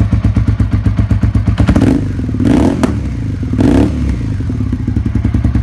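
Suzuki SV650's V-twin engine running with a fast, even pulsing, swelling briefly twice around the middle as the throttle is blipped.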